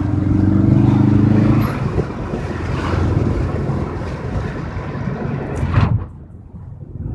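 Ford Focus RS's 2.3-litre turbocharged four-cylinder engine running while the car drives, heard from inside the cabin along with road and wind noise. The engine note is strongest in the first couple of seconds, and the sound drops off abruptly about six seconds in.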